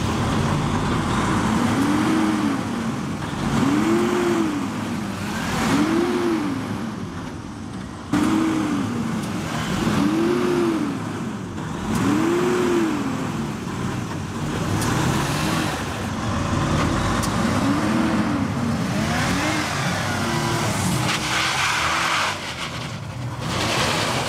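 Toyota Tacoma pickup's engine revving up and falling back over and over, about every two seconds, with a rough rumble beneath, as it strains to tow a semi-truck stuck in mud.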